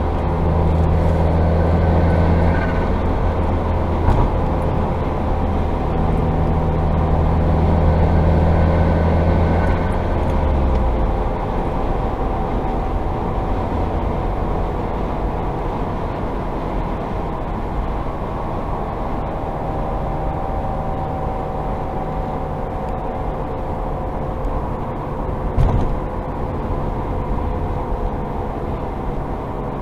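Subaru WRX driving in 5th gear, its flat-four engine pulling, until about ten seconds in the engine note drops away as it goes into neutral and coasts. Under the road noise a droning hum that follows wheel speed, not engine speed, goes on, sounding like a plane flying overhead and slowly falling in pitch as the car slows; it appeared after a hard braking event. Near the end there is a single short knock.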